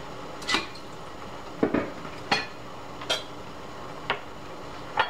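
Stainless steel pot lid clinking against the pot rim about six times at uneven intervals, over a faint steady background, as a pot of broccoli cooks on medium-high heat.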